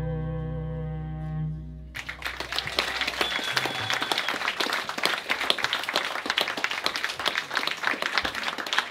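A live band's final chord is held for about two seconds and stops, then the audience claps and applauds.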